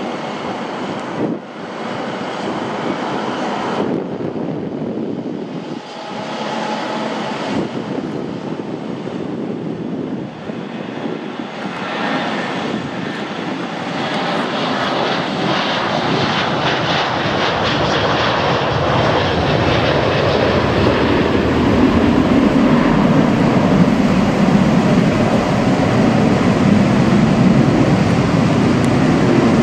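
Boeing 737-300 jet engines at takeoff thrust, a steady roar that builds and grows loudest in the last third as the airliner rolls past and climbs out.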